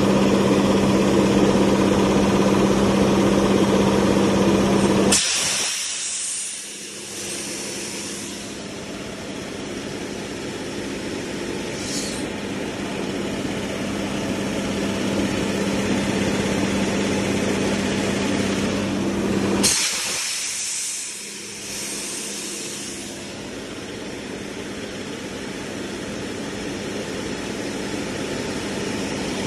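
Hongwuhuan HG650-16C air compressor running with a steady hum. About five seconds in, a sudden rush of hissing air cuts in and the low hum drops away, then slowly builds back. A brief hiss comes near the middle and another sudden rush of air about two-thirds of the way through.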